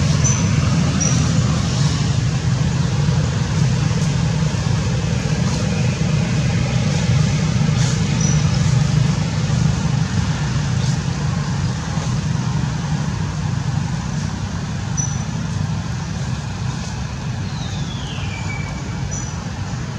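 Steady low rumble with a few short, high chirps, and one falling whistle near the end.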